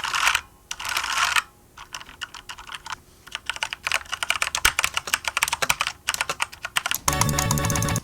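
Typing on an Azio MK Mac mechanical keyboard with Cherry MX Brown switches: fast runs of clacking keystrokes with short pauses, ending in a louder, denser flurry near the end.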